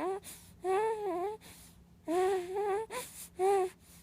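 Sleeping baby whimpering while dreaming: four or five short whimpers, each under a second, their pitch wavering up and down, with brief pauses between.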